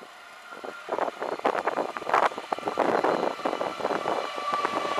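NS double-deck InterCity train approaching and passing close by, its wheels clattering in quick irregular knocks over the rails, getting louder from about a second in. A steady whine joins near the end as the train draws level.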